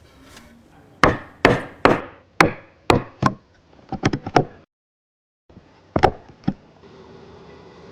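A tool striking into wood with a series of sharp blows about half a second apart, then a few lighter taps; after a short break, two more blows.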